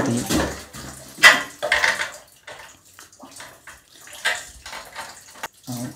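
Metal nuts on a water heater's heating-element flange being turned down by hand: a few short metallic clicks and scrapes at uneven intervals, the loudest a little over a second in.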